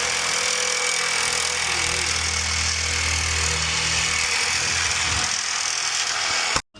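Loud steady machine noise with a low hum, cutting off abruptly near the end.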